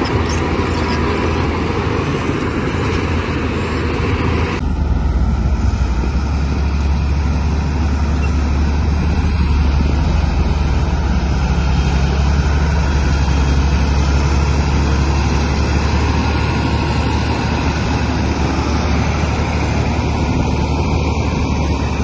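Bulldozer's diesel engine running steadily with a deep, constant drone. About four and a half seconds in, the higher sounds change abruptly while the low engine note carries on.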